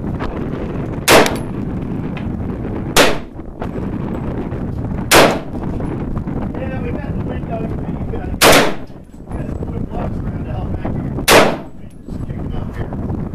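Semi-automatic AR-15 rifle with a .223 Wylde upper firing five single shots at an uneven, deliberate pace, two to three seconds apart, each a sharp crack with a brief echo, over steady background noise.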